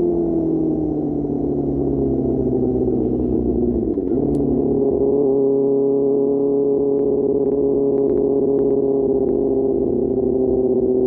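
QJ Motor SRK600's inline-four engine running through an SC-Project exhaust. The pitch eases down for about four seconds, dips briefly, then holds a steady note at cruising speed.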